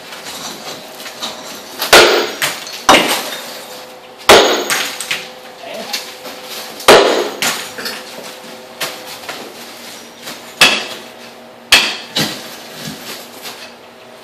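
Sledgehammer striking a concrete floor slab, about six hard blows at uneven intervals, with lighter knocks and the clink of broken concrete pieces between them.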